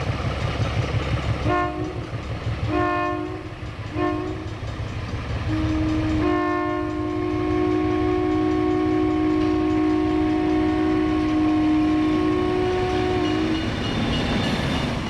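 Horn of an MLW S-12 diesel switcher sounding a chord: three short blasts, then one long blast of about eight seconds. Beneath it runs the low rumble of the locomotive's ALCO 539 diesel engine.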